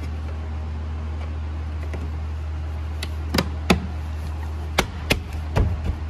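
A run of sharp plastic clicks and knocks, starting about halfway through, as the Ford Explorer's master window switch cover is pressed and tapped down into the door armrest and its clips snap into place. A steady low hum runs underneath.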